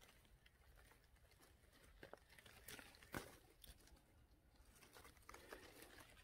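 Faint rustling of blackberry bramble leaves and stems, with small scattered snaps and clicks, as ripe blackberries are picked by hand; the sharpest click comes about three seconds in.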